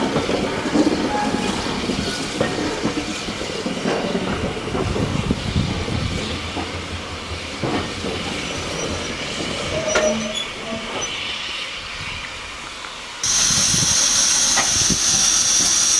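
Heritage train coaches running slowly over the rails, the wheels clacking and rumbling with scattered clicks over joints, easing off as the train slows. About thirteen seconds in, a loud steady hiss of escaping steam from a green steam tank locomotive standing close by.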